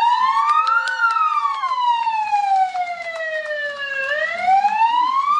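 A siren wailing: its pitch rises over about a second, falls slowly for about three seconds, then rises again near the end.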